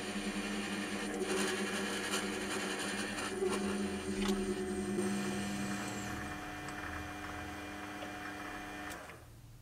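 Small metal lathe running, its motor humming steadily while the tool turns a brass ring, with a scraping hiss of cutting that is strongest in the first half. The sound cuts off suddenly near the end.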